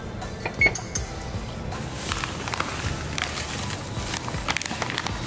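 Background music, with a short electronic beep from an oven keypad under a second in. From about two seconds in comes the rustling hiss of dry chocolate chip cookie mix poured from a plastic bag into a stainless steel bowl.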